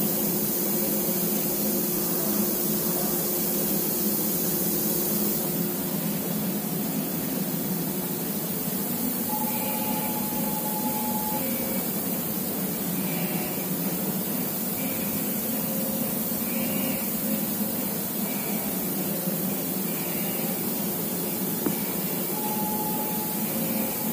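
Steady hiss of a running CNC milling machine and the machine shop around it. The high hiss eases a little about five seconds in, and a faint tone comes and goes twice.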